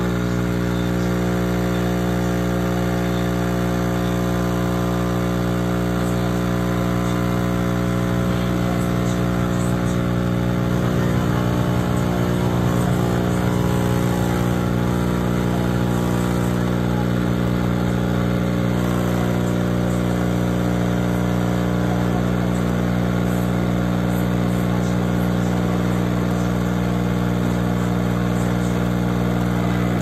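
Café Affetto automatic espresso machine's 20-bar pump running with a steady, loud hum while it pushes coffee out of the spout into the cup during a brew.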